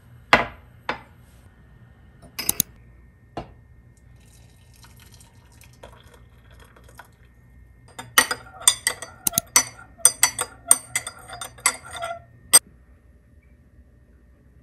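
A glass mug is set down on a granite countertop with a few sharp knocks. In the second half a metal spoon clinks rapidly against the glass mug for about four seconds as tea is stirred.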